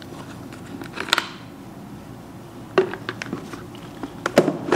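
Plastic clicks and knocks from the Kärcher K 3 HR's detergent tank being handled and fitted into its slot under the machine: a couple of sharp taps about a second in, one near three seconds, and a short cluster near the end.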